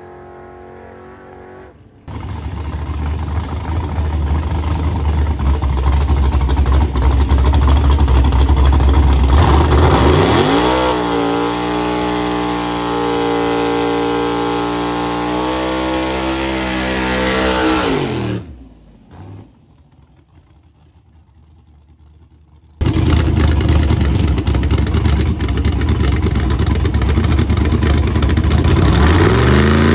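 Fox-body Ford Mustang drag car's engine held at high revs through a burnout, the pitch climbing about ten seconds in and holding steady before it drops away. After a few quieter seconds the engine runs loud again and revs up near the end.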